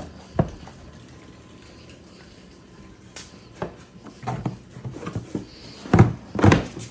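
Irregular knocks and clicks of rack parts being handled and pushed into a snowmobile tunnel mount: one click about half a second in, then a run of sharper knocks in the second half, the loudest two near the end.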